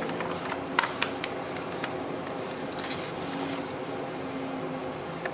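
Paper pages of a notebook being turned by hand: a few sharp paper clicks in the first two seconds and a short rustle about three seconds in, over a steady low background hum.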